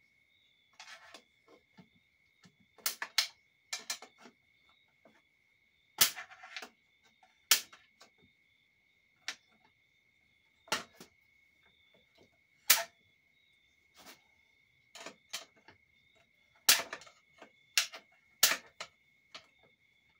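Steel internal parts of a 4L60E automatic transmission clinking and knocking as they are handled and set down during teardown: sharp, separate strikes every second or two.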